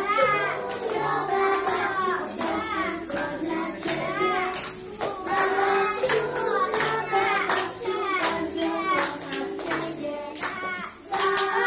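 A children's song: children's voices singing over a backing track with a steady bass line and beat.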